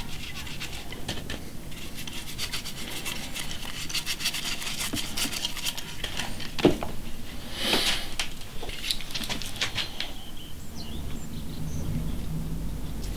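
Hand work on wood: quick repeated rubbing and scraping strokes, then a single sharp knock about seven seconds in and a louder rasp just after. Quieter handling follows near the end.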